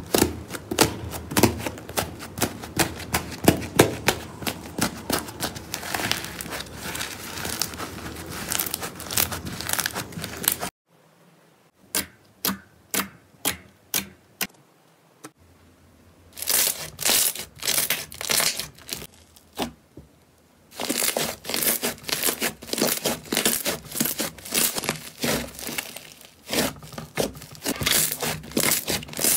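Hands squeezing and stretching slime, with dense crackling and popping clicks. About eleven seconds in it drops to a few separate pops and quieter squishes, then turns to dense crackling again from about twenty seconds.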